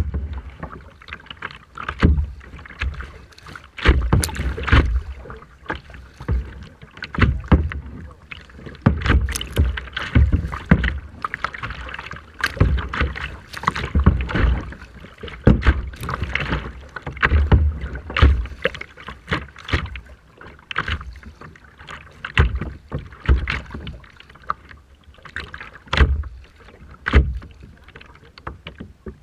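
Rough sea water sloshing and splashing in irregular bursts, one every second or so, with strong wind buffeting the microphone.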